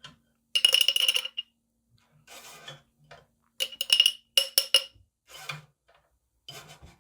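Metal utensil clinking and scraping against a glass jar while strained onion pieces are put back into it: several bunches of short clinks with a light ringing tone, spread through the seconds.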